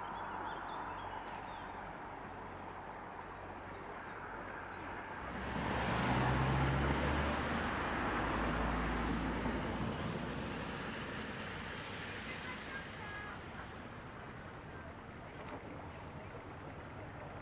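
A motor boat passing close: a low engine hum that swells about five seconds in and fades away over the next several seconds.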